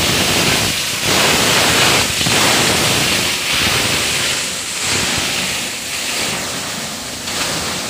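PET bottle grinding machine running: a loud, dense rushing noise of its cutter rotor turning over plastic.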